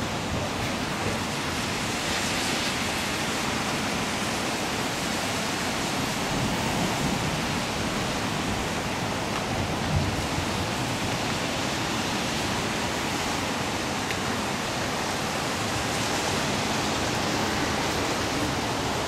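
Rain falling steadily, a continuous even hiss with no breaks, and one short knock about halfway through.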